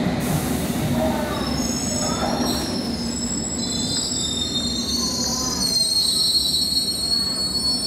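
London Underground Piccadilly line 1973 Stock train running slowly around a curve over points, wheel flanges squealing in several high-pitched overlapping tones from about two and a half seconds in, over the low rumble of the train.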